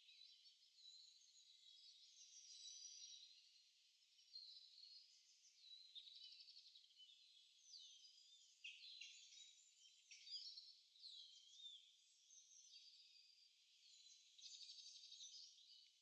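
Faint songbird chorus: several birds singing over one another, in a steady mix of trills, chirps and quick whistled glides.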